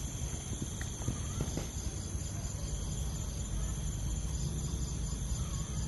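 Steady chorus of insects, several shrill high tones held without a break, over a low rumble.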